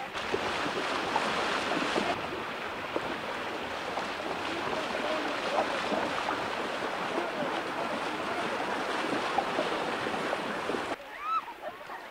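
Heavy water splashing as a group of people run and wade through a shallow river, a steady rushing hiss with faint short calls mixed in. About eleven seconds in the splashing cuts off abruptly, leaving a few short rising calls.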